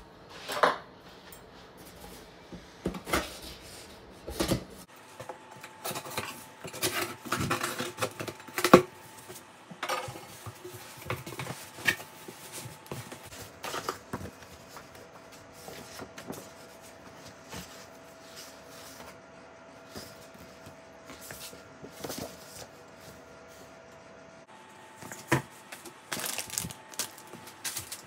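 Cardboard delivery box being opened by hand: a knife slitting the packing tape, flaps knocked and pulled open, and paper rustling as a recipe booklet and paper bags are handled. Sharp knocks and clicks come in the first ten seconds, it goes quieter through the middle, and rustling picks up again near the end.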